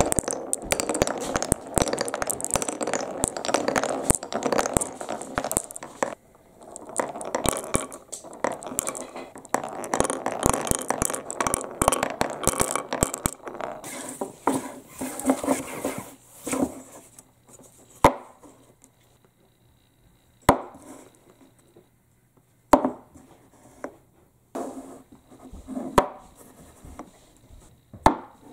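Balls rolling and clattering down a wooden HABA marble run: a dense, busy stream of clicks and rolling for the first half, thinning out to single sharp knocks every two or three seconds near the end.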